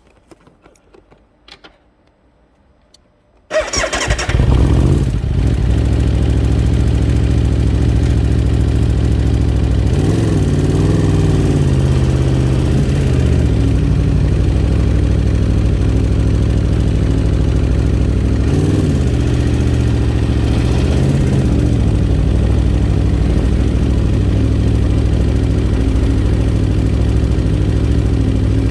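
Aprilia RSV4 RR's V4 engine starting about three seconds in and then idling steadily, its revs rising briefly twice.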